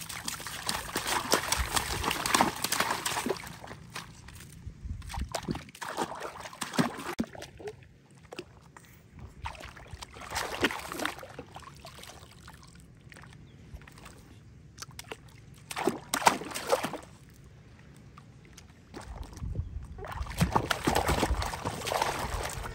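Water splashing and sloshing in a plastic tub of bathwater as a baby monkey thrashes about in it, in repeated bursts, the longest at the start, with quieter trickling and dripping between.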